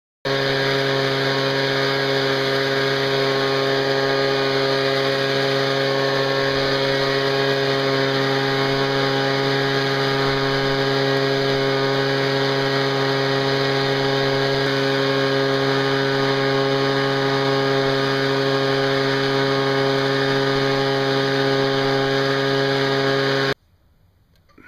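Leaf blower running at a steady, unchanging speed. It starts abruptly and cuts off suddenly about a second before the end.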